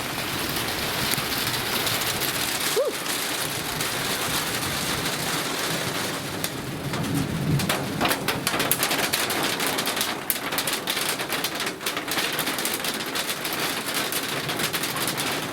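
Steady rain falling, with many small drop ticks over a constant hiss.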